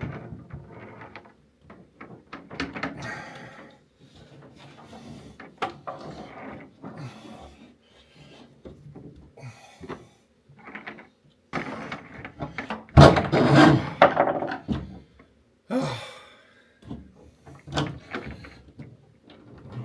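Irregular knocks, clunks and scraping from hands and tools working wiring and air line through the ute tray, with a louder clatter about thirteen seconds in.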